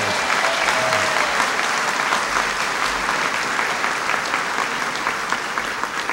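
Large crowd applauding, a dense steady clatter of many hands clapping that eases off a little near the end.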